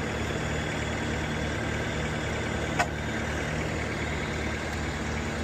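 Heavy vehicle engine idling steadily, with one short click a little under three seconds in.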